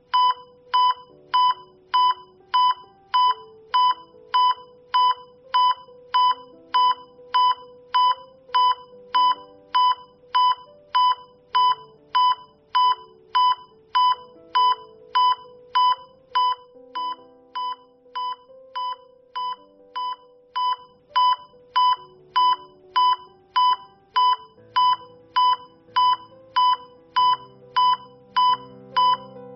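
Electronic nurse-call alarm beeping in short, sharp, even beeps about twice a second, the signal of a patient's call for a nurse. The beeps dip in level for a few seconds past the middle, and soft piano music plays underneath.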